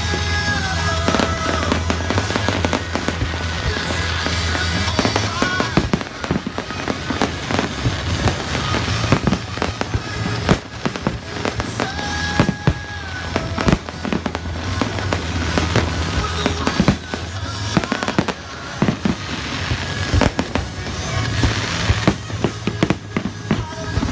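Fireworks display going off: a rapid run of sharp bangs and crackles that grows denser after about six seconds, with music playing underneath.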